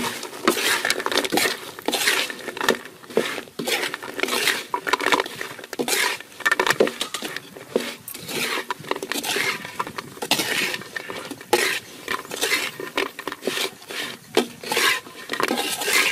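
A metal ladle scraping and clinking against a metal wok in quick, irregular strokes as sugar-coated fried taro strips are stirred and tossed, the stiff strips rattling against the pan and each other.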